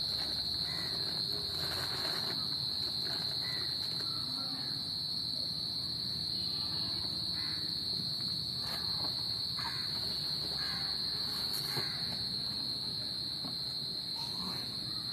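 Steady, high-pitched chirring of insects, unbroken throughout, with a few faint knocks.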